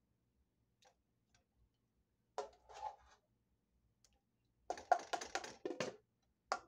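Light clicks and clatter of cookware: a pot lid and a plastic measuring cup knocking and scraping against pans as stew is scooped into a saucepan, with a quick run of taps a little before the end.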